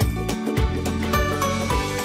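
Background music with a steady beat and bright, chiming notes.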